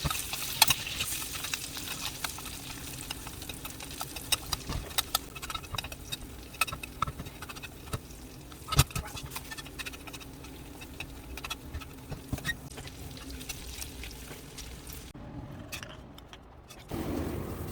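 Beef tenderloin steak pan-frying: fat and oil crackling and spitting in irregular sharp pops over a faint sizzle that fades. The crackling stops near the end, and a duller rushing noise comes in just before the end.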